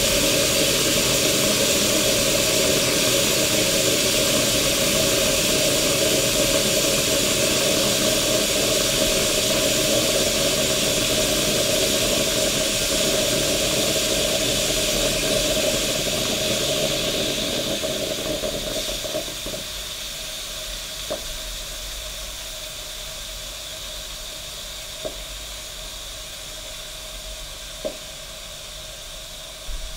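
East German Kaffee Boy K500 drip coffee machine hissing and steaming hard as it pushes the last water through. About twenty seconds in the heavy steaming dies away, leaving a quieter steam hiss that slowly fades, broken by a few sharp clicks.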